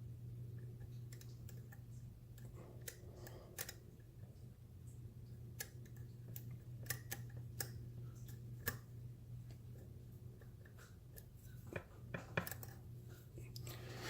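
Scattered faint clicks and ticks of a lock pick and tension wrench working the pin tumblers of a vintage Sargent padlock, with a steady low hum underneath.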